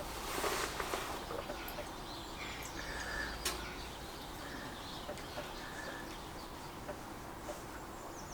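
Relays in a 2012 Triumph Street Triple 675R's electrics clicking faintly on and off, with a few short high-pitched electronic blips, while the ignition is on and the bike won't start. The relay cycling over and over is a symptom of the no-start fault being chased.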